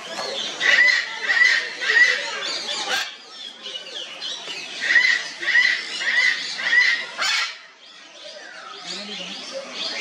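Sun conures squawking and chattering, with a repeated call of four clear notes about a second in and again about five seconds in. The calls ease off briefly near the end.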